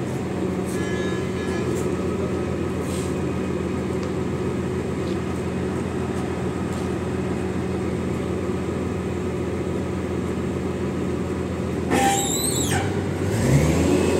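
Hyster reach stacker's diesel engine idling steadily while it holds a container, with a brief loud noise about twelve seconds in. Near the end the engine revs up.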